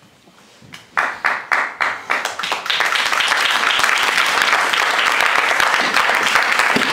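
Audience applause: a few separate claps about a second in, quickly swelling into loud, steady clapping from many hands.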